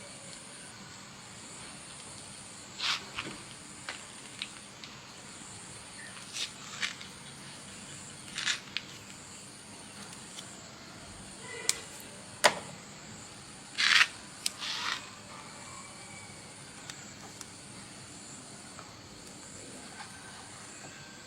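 Scattered short scrapes and clicks, with one sharp click about twelve seconds in and a brief louder scrape near fourteen seconds, over a steady background hiss.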